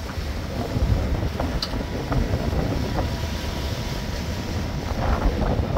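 Wind buffeting the microphone aboard a sailboat under way, an uneven low rumble over a steady rush of noise, with a few faint ticks.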